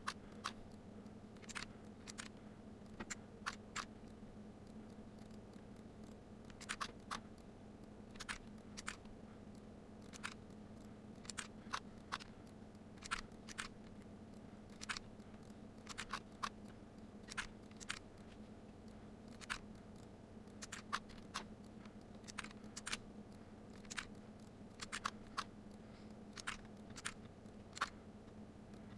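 Faint computer mouse and keyboard clicks, sharp and irregular, often in close pairs, as code is copied and pasted and new files are created, over a steady low electrical hum.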